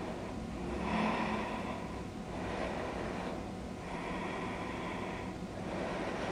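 A woman breathing audibly, several slow breaths in and out, while holding a standing balance pose.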